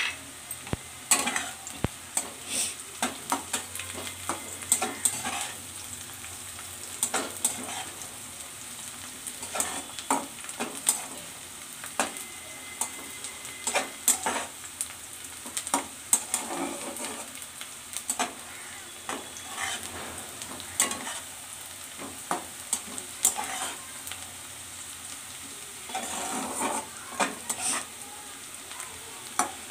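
Onions and crushed garlic frying in mustard oil in a metal kadai, sizzling steadily while a flat metal spatula stirs them, scraping and knocking against the pan in frequent strokes.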